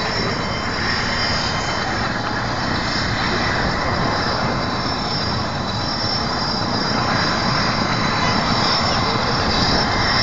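Helicopter running steadily: a constant loud rush of turbine and rotor noise with a thin, steady high whine over it.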